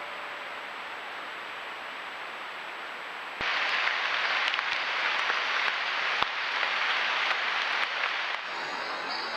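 Steady hissing night jungle ambience through a trail camera's microphone, with a thin high tone in the first few seconds. About three and a half seconds in it steps up louder, with a few scattered faint clicks.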